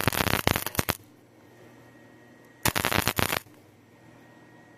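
Welding arc crackling in two short bursts on steel pipe, the first in the opening second and the second about three seconds in.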